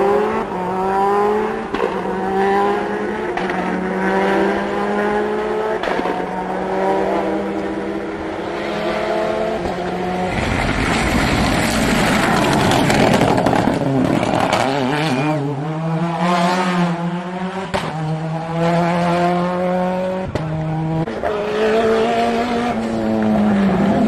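A rally car's engine revving hard up a hillclimb, its pitch climbing and dropping back in steps as it shifts up through the gears on the approach. About ten seconds in it passes close with a loud rush of engine and tyre noise, then keeps changing gear as it pulls away, and another car's engine starts to build near the end.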